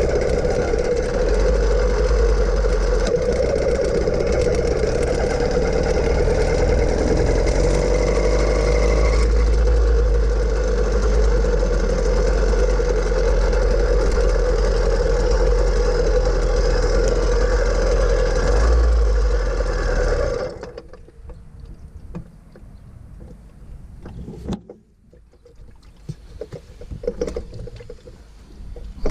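A vehicle engine running steadily on the road, its pitch shifting about nine seconds in. It cuts off suddenly about twenty seconds in, leaving only a few faint clicks and knocks.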